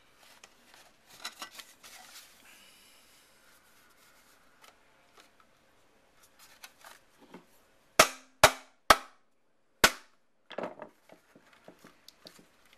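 Plastic case of an old Apple floppy disk drive being forced open: light clicking and scraping of plastic, then four loud, sharp cracks about eight seconds in, the last a second after the first three, followed by a brief rattle.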